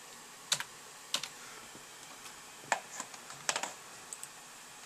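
About six separate clicks from a computer keyboard, irregularly spaced, over a low steady hiss.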